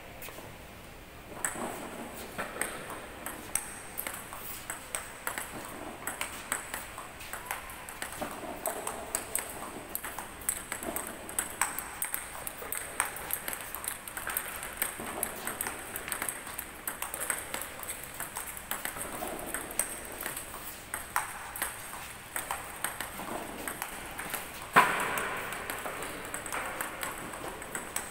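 Table tennis ball knocking back and forth on the table and the paddles in a rally: a steady run of short, sharp clicks, with one much louder knock about three-quarters of the way through.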